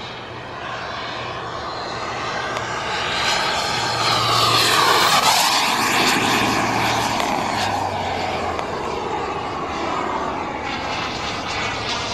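Black Mamba turbine of a Feibao Mirage F1 model jet in flight, making a fly-by: the jet whine and rush grows to its loudest about five seconds in as the plane passes, drops in pitch, then carries on a little quieter.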